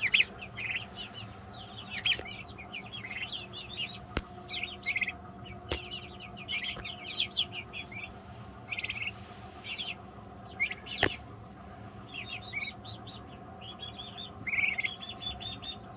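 Brooder flock of five-week-old turkey poults and young chickens peeping: many short, high chirps overlapping and scattered throughout, with a couple of sharp clicks.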